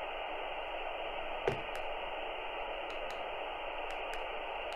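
Steady static hiss from a Retevis RT85 handheld radio's speaker, its squelch held open by the monitor button, with a few light clicks as frequency keys are pressed.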